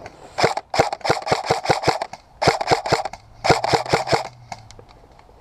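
Airsoft gun firing close by: four quick strings of sharp shots, about five a second, with short pauses between the strings.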